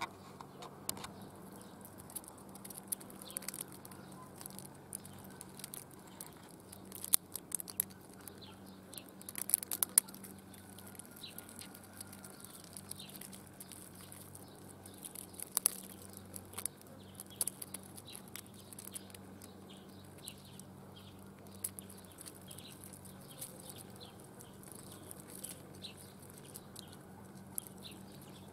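Outdoor ambience: scattered sharp clicks and taps, loudest in a cluster about a third of the way in, over faint high chirping and a steady low hum.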